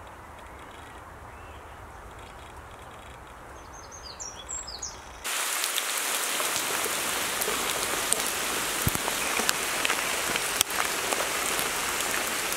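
Quiet outdoor background with a few short bird chirps about four seconds in. About five seconds in it switches suddenly to torrential rain falling steadily on a tarmac road and splashing.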